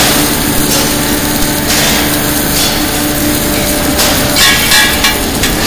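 Submerged arc welding station running on the circumferential seam of a steel LPG cylinder at about 450–500 A, a steady loud machine noise with a low hum. A brief high squeal comes about four and a half seconds in.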